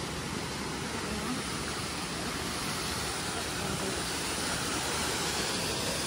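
Steady rushing of a mountain waterfall, growing slightly louder.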